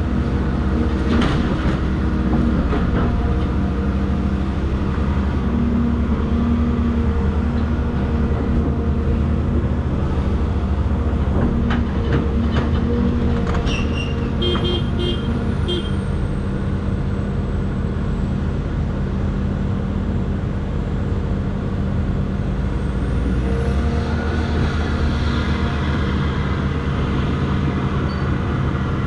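Caterpillar 336 excavator's diesel engine running steadily at working speed, with a few metal knocks and clanks and a quick run of high beeps about halfway through.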